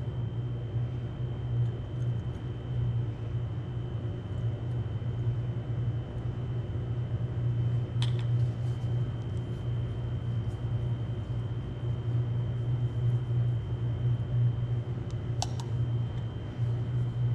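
Steady low machine hum with a thin high whine over it. About eight seconds in, and again near the end, a light click as PVC pipe fittings are handled.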